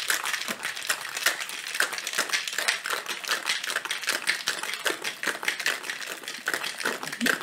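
Ice rattling hard inside a Boston shaker (metal tin sealed over a mixing glass) being shaken vigorously: a fast, steady clatter of ice against metal and glass. The shake chills the margarita and melts some of the ice into it.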